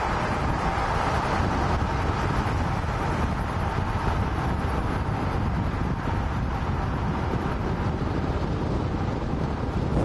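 Steady driving noise of a car on the road: a low engine and tyre rumble with a rushing hiss over it, unchanging throughout.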